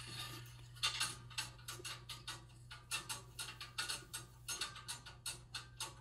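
Irregular light clicks, taps and scrapes, a few a second, from hands handling the sheet-metal burner tubes inside a gas furnace's burner compartment, over a low steady hum.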